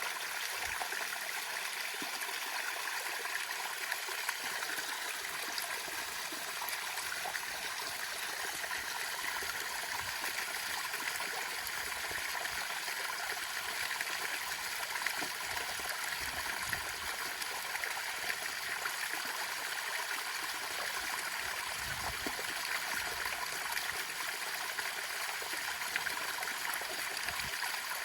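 Small waterfall: water falling and splashing in a steady, even rush.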